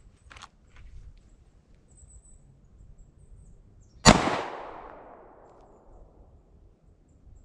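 A single pistol shot about four seconds in, its report echoing away over a couple of seconds. A couple of faint clicks come near the start.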